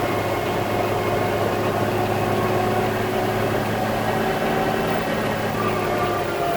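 Concrete mixer truck's diesel engine running steadily at an even pitch, with no revving.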